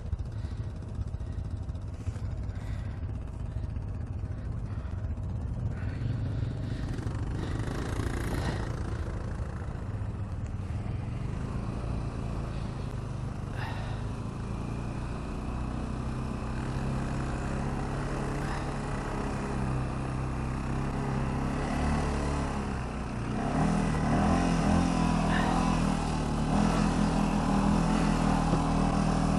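ATV engine running under way, with a few sharp knocks and rattles in the first part. The revs and loudness step up about three-quarters of the way through.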